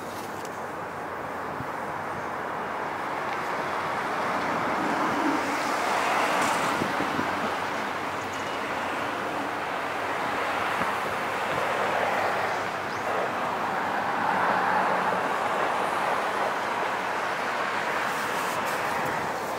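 Electric commuter train running on the rails through a station, a steady rumble of wheels on track that builds over the first few seconds, then swells and eases several times.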